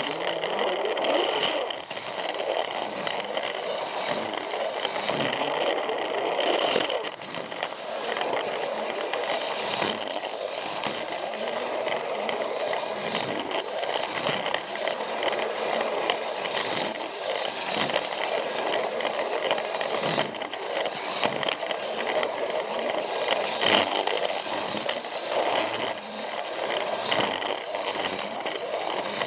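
Plarail toy train running along plastic track: the battery motor and gearbox whirring steadily while the plastic wheels rattle and click over the rails and track joints.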